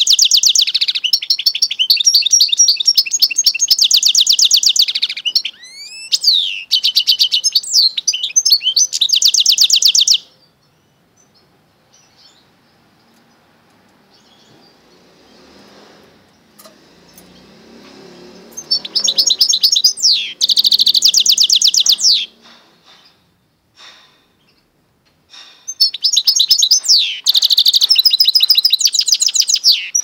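Goldfinch × canary mule singing: fast, high twittering and trilled song in long bouts. The first bout lasts about ten seconds, then comes a pause of about eight seconds, then two shorter bouts.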